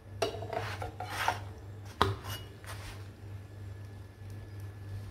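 A spatula scraping and rubbing against a dosa tawa while a shawarma flatbread is turned and pressed on it, with a sharp tap on the pan about two seconds in, over a steady low hum.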